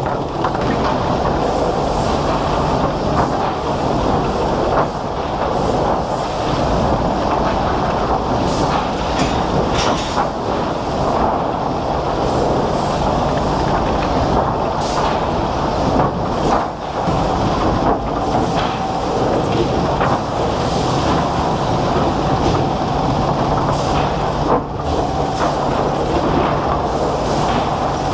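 Wood-processing machinery running: a loud, steady rumbling clatter with scattered sharp knocks and a faint steady hum.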